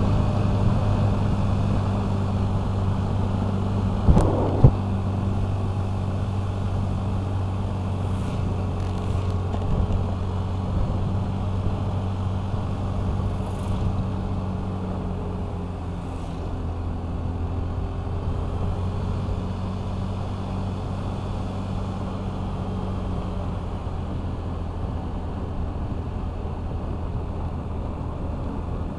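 Honda Vario 125 scooter's single-cylinder engine running at a steady cruise, with wind and road rumble on the microphone. Two sharp knocks about four seconds in.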